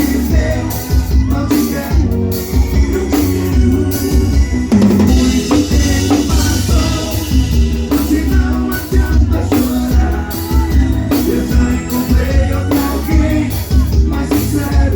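A forró band playing live, heard from the stage, with a drum kit to the fore: a steady bass-drum beat, snare and rimshot hits over the bass and other instruments.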